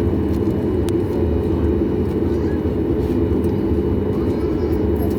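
Steady low cabin rumble inside a Boeing 737 MAX 8 on the ground after landing, its engines and air conditioning running, with a faint click about a second in.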